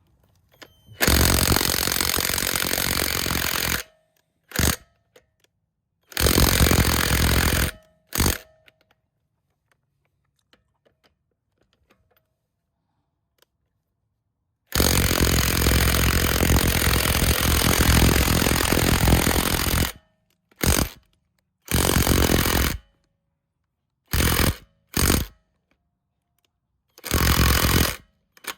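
Cordless impact wrench hammering on a car's wheel lug nut in repeated bursts, several lasting a few seconds (the longest about five) with short blips between them. The nut does not come loose: the wrench does not have the power to take it off.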